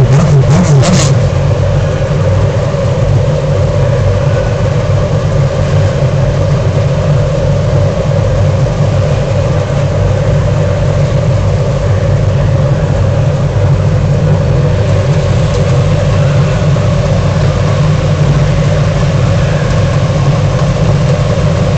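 IndyCar race cars' Honda V8 racing engines idling together on the starting grid, a loud, steady, fluttering drone.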